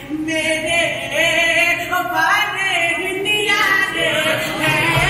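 Devotional singing: a voice draws out long, wavering notes that slide up and down in pitch, with no clear words.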